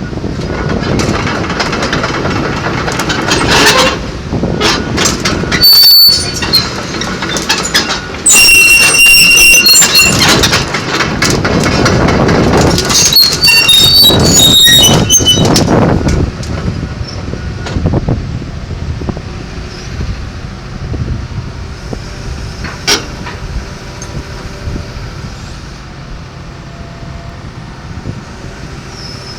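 John Deere 225DLC excavator working, with loud metal clanking and two spells of high squealing, the kind steel track links and undercarriage make as the machine moves. After about 16 seconds it settles to a quieter, steady engine running.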